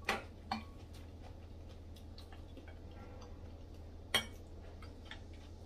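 Quiet eating at the table: chopsticks clicking against a soup bowl, a few sharp taps with the loudest about four seconds in, over a low steady hum.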